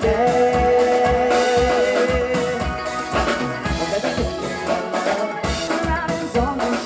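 Live band playing an upbeat song, a drum kit keeping a steady beat under electric guitar and keyboard, with a long held note near the start.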